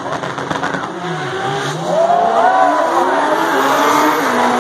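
Two drag racing cars launching and accelerating hard down the strip side by side. Their engine pitch climbs, drops and climbs again as they shift, and the sound gets louder about two seconds in.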